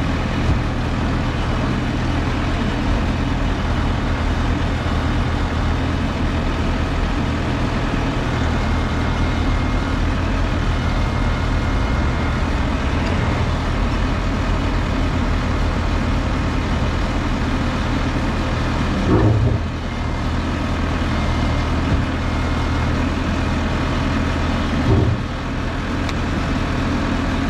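Allis-Chalmers 7045 tractor's diesel engine running steadily while it works to move a skid steer. Two brief louder knocks come about six seconds apart in the second half.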